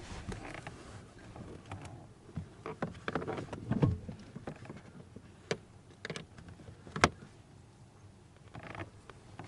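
Scattered clicks and knocks of a screwdriver and plastic dash trim being handled while the glove box screws are taken out, with a sharp click about seven seconds in.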